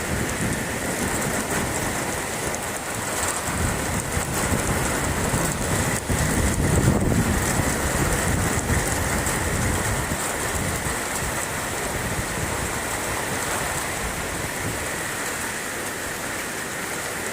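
Heavy rain pouring steadily in a summer thunderstorm, with low rumbles now and then.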